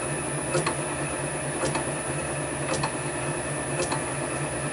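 Electric motor running steadily at about 1475 rpm off a Powtran variable-frequency drive: a low hum with faint ticks about once a second. The drive's carrier frequency has been raised, which has fixed its frequency noise, so little of the usual VFD whine remains.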